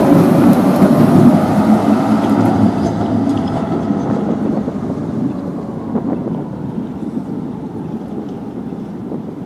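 Two-car Tatra tram rolling past on street track, loudest at the start and fading steadily as it moves away. A single short knock comes about six seconds in.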